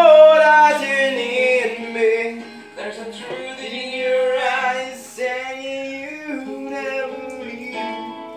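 A song: a singing voice holding and gliding between long notes over music.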